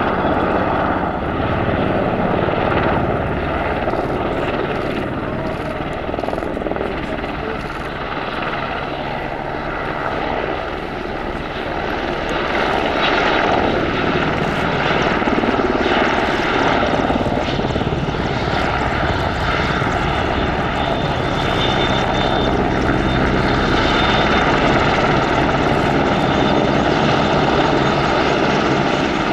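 Military helicopter flying past: steady rotor and turbine engine noise, growing louder over the second half.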